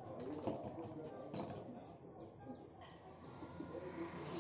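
Faint clinks and knocks of metal speaker parts being handled on a metal speaker cabinet, with two sharper clicks about half a second and a second and a half in.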